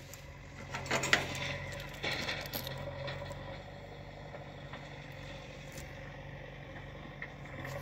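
A small metal earthing clip clinks and scrapes as it is handled and fitted by hand into an air compressor's separator housing. There are a few light clicks about one and two seconds in, over a low steady hum.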